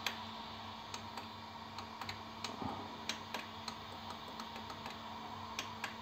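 Small tactile push-buttons on an Anet A8 3D printer's LCD control panel clicking as they are pressed again and again at an uneven pace, over a faint steady hum. The panel is not responding to the presses.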